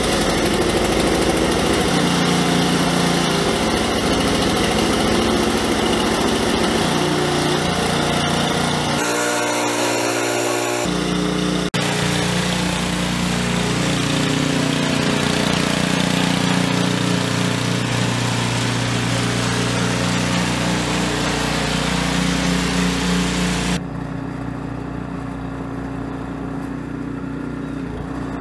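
Gasoline engine of a Craftsman two-stage snowblower running steadily just after a cold start. The sound changes abruptly twice around 9 and 12 seconds in and turns quieter for the last few seconds, heard from farther off.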